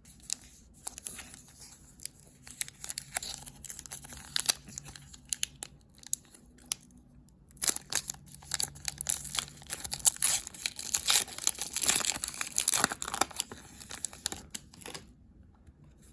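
A trading card pack wrapper being torn open and crinkled by hand, with scattered rustles of cards being handled at first and a dense stretch of crinkling from about halfway through to near the end.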